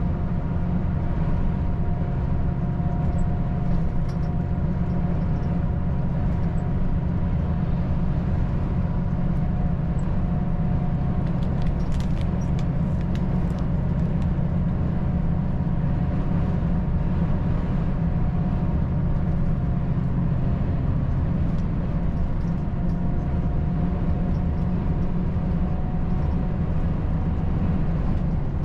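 Volvo FH 540 truck's 13-litre straight-six diesel cruising at a steady speed: an even, low engine drone with road noise, holding level throughout, with a few faint ticks about twelve seconds in.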